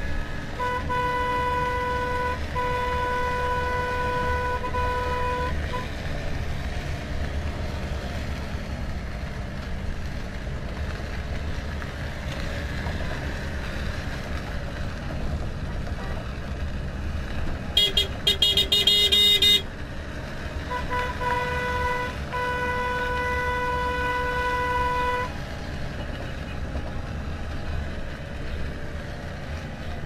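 Car horns of a festive convoy honking: a steady horn held for several seconds twice, with a shorter, louder, rapidly warbling higher-pitched horn in between. Car engines and road noise run underneath throughout.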